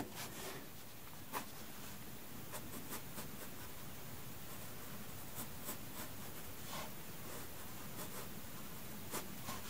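Metal mechanical pencil drawing lines on sketchbook paper: faint scratchy strokes at irregular intervals over a soft steady hiss.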